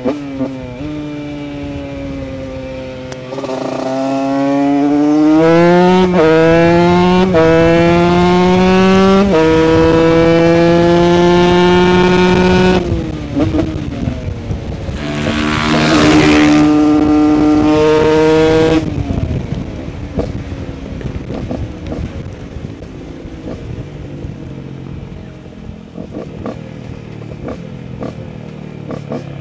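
A 2018 TM SMR 125 two-stroke supermoto with an HGS aftermarket exhaust, accelerating hard through the gears. The pitch climbs and drops back with each upshift between about three and thirteen seconds in, then cuts as the throttle closes. A second hard pull runs from about fifteen to nineteen seconds in. For the last ten seconds it is rolling off and running light, quieter and uneven.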